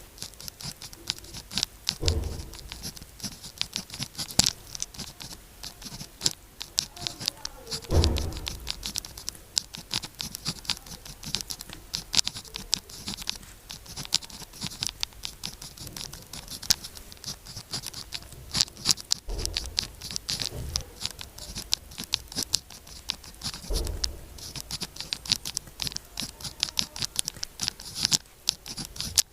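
A pen writing on sticky-note paper: a dense run of small scratching and ticking strokes. A few dull thumps come in among the strokes, the loudest about eight seconds in.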